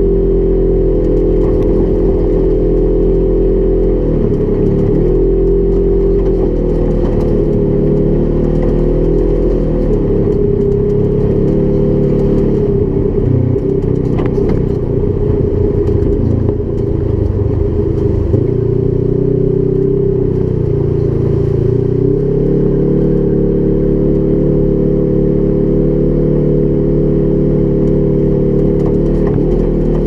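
Polaris RZR XP 1000 UTV's twin-cylinder engine running under way at a fairly steady pitch. The engine note dips briefly about four seconds in, then wavers and drops for several seconds midway as the throttle comes and goes, before settling back to a steady pitch.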